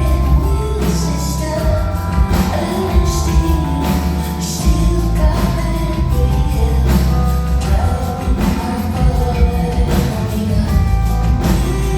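Live concert performance of a woman singing over a band, with heavy bass and a steady drum beat.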